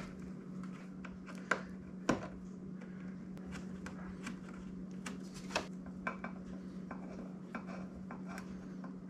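Light clicks and taps of hard plastic being handled as a sportbike's plastic inner fender liner and push rivets are fitted by hand, with two sharper clicks about a second and a half and two seconds in. A steady low hum runs underneath.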